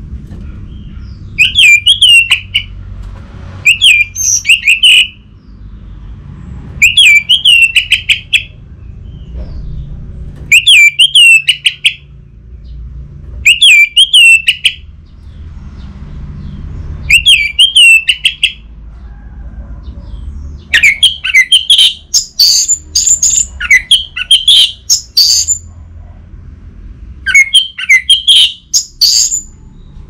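Orange-headed thrush singing loud whistled phrases of a second or so, separated by short pauses. In the second half it breaks into a longer, faster run of higher notes.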